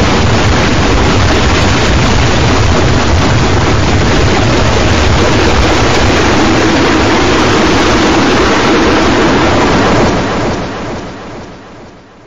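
Harsh noise music from an old G.M.X. 802V: a loud, dense wall of rumble and hiss, heaviest in the low end. It fades out over the last two seconds.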